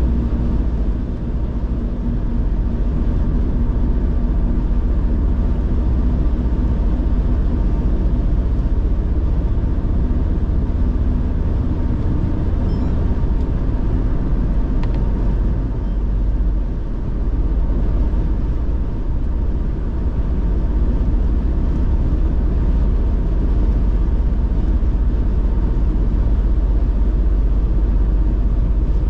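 A car driving at speed: steady low rumble of road, tyre and engine noise, easing briefly about halfway through.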